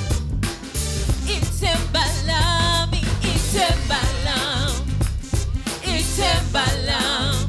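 Live gospel worship music: electric keyboard and band playing with a steady beat, joined about a second and a half in by a woman's lead vocal with vibrato.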